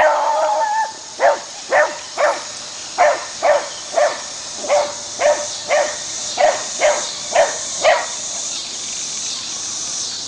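Beagle barking excitedly while chasing a radio-controlled truck: one longer drawn-out bay at the start, then about a dozen short barks roughly twice a second, stopping about eight seconds in.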